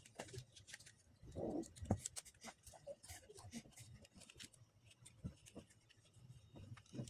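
Faint, scattered clicks and small knocks of hard plastic ignition coils being handled and fitted back into the spark-plug wells on the valve cover, with a brief low sound about a second and a half in.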